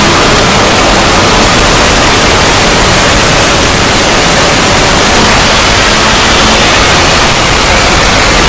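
Loud, steady static-like noise spread evenly across all pitches, with no breaks: a heavily distorted, fan-made 'void' logo sound effect.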